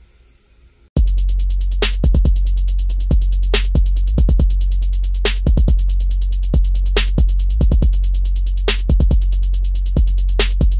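Electronic beat with drum machine and deep bass that starts abruptly about a second in, with rapid high ticking percussion over it. Before it, a faint tail of quieter music.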